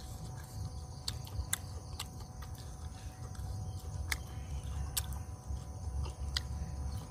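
A person chewing grilled squid close to the microphone, with irregular sharp mouth clicks every half second or so over a low, uneven rumble of jaw movement.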